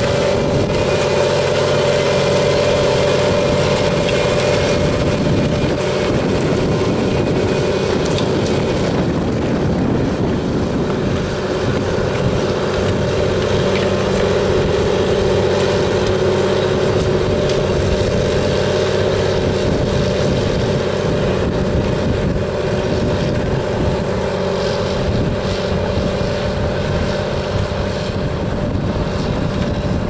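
John Deere 8420 tractor's six-cylinder diesel engine running steadily under load while pulling a mounted plough through the soil, a constant drone.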